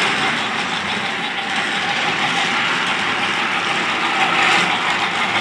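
Motorized Thomas the Tank Engine toy train running steadily along plastic track, pulling a string of wagons. Its small electric motor whirs and the wheels rattle on the track.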